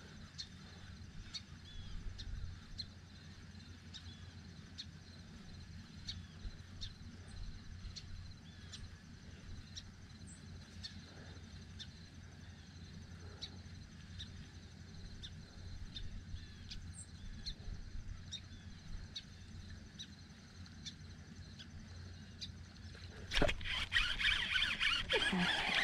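Faint, evenly spaced clicking, about two a second, over a low steady hum while a topwater lure is retrieved. About 23 seconds in, a sudden loud splash comes as a bass strikes the Whopper Plopper, followed by continued splashing as the fish is fought.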